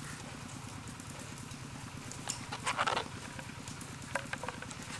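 Wet squishing of green pulp squeezed by hand in a plastic strainer, with its juice trickling into a bowl; the loudest squish comes a little past halfway. A steady low hum runs underneath.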